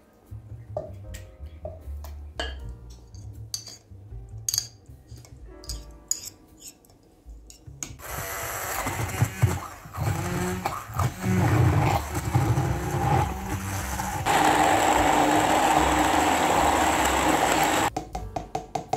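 Wooden spatula scraping and knocking cooked tomato from a pan into a plastic beaker, then an electric immersion stick blender puréeing the fried tomatoes and onion for about ten seconds. The blender is uneven at first, then louder and steadier for its last few seconds before it cuts off.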